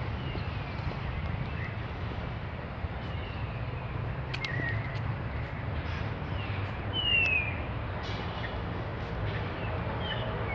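A series of short, falling bird-like chirps and whistles, the loudest about seven seconds in, over a steady low rumble.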